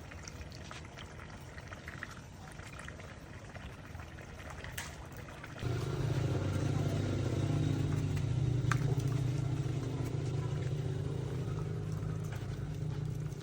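Faint background noise with a few light clicks, then about halfway through a steady low machine drone starts abruptly and runs on evenly.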